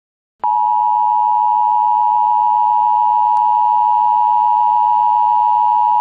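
Emergency Alert System attention tone: one loud, steady electronic tone that starts suddenly about half a second in and holds at an unchanging pitch.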